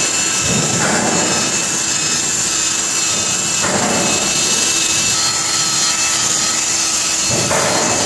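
Cordless drill running steadily with a round brass-coloured bit scraping a rusty steel plate clean. A constant motor whine sits over the grinding noise.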